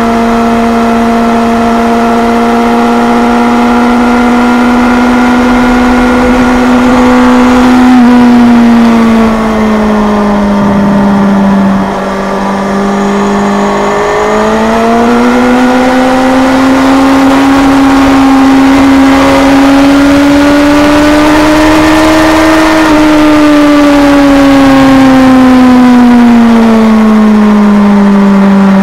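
Kawasaki Z1000's inline-four engine running at steady high revs under the throttle. The pitch sags about a third of the way in and dips briefly near the middle, then climbs slowly for several seconds before falling off again near the end.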